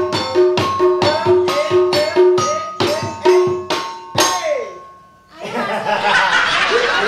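A small hand drum beaten with a stick in a steady rhythm, a little over two strikes a second, each strike with a short ringing tone; the drumming stops about four seconds in, and laughter follows.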